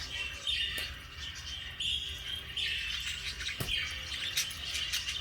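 Budgies (parakeets) chattering and chirping continuously, several birds at once, with scattered small clicks.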